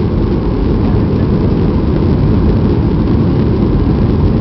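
Steady low rumble of a Boeing 737-800's CFM56 engines and airflow, heard inside the cabin from a seat over the wing during the approach with flaps extended.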